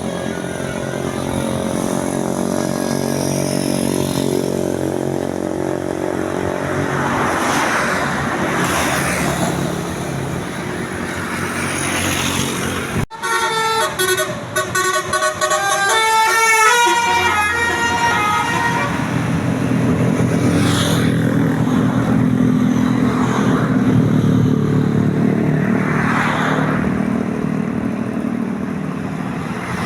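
A vehicle engine runs steadily and then cuts off sharply about 13 seconds in. Next, a multi-tone telolet bus horn of the Basuri type plays a quick stepping melody for about five seconds, after which the engine sound resumes.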